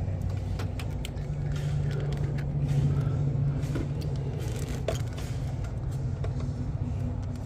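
Steady low engine-like rumble in the background, with scattered light clicks and taps of injectors and the fuel rail being handled and pressed into place.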